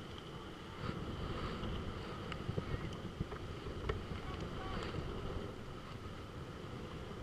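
Wind buffeting the microphone, a steady low rumble with the wash of surf beneath it, and a few short sharp clicks.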